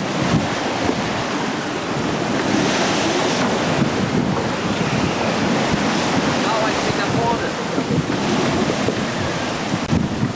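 Rush of breaking bow waves and spray along a sailing ship's hull in rough sea, with strong wind buffeting the microphone. The noise is loud and steady, without pause.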